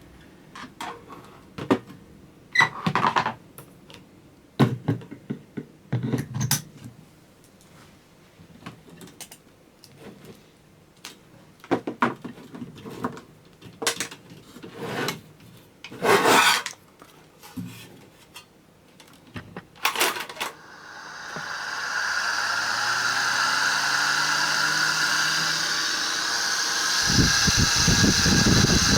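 Scattered knocks and clicks of the fan being handled, then about twenty seconds in the 1994 Toshiba VFH-15H1 15 cm kitchen exhaust fan is switched on. Its motor rises in pitch as the blades spin up, then runs with a steady hum and airflow noise, with a few low thumps near the end.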